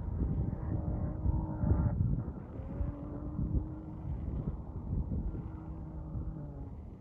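A distant engine droning, its pitch shifting slowly, under heavy wind buffeting on the microphone.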